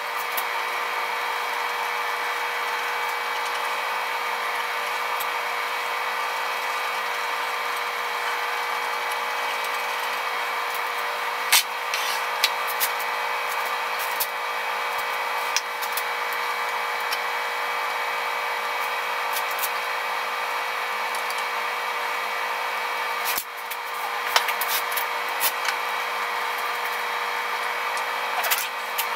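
Steady hissing hum of shop background noise, with scattered sharp metallic clicks and clinks as steel parts of a radial drill arm are handled and fitted. The steady noise dips briefly about 23 seconds in and comes back.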